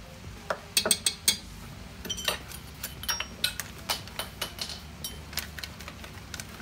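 Sharp clinks of a metal spoon and a glass bottle being handled and set down, a loud cluster of four about a second in, then lighter scattered taps and clicks.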